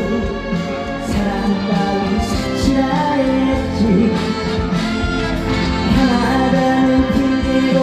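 Instrumental interlude of a Korean trot song played through a stage sound system: a backing band track with a steady beat and a melodic lead line, between sung verses.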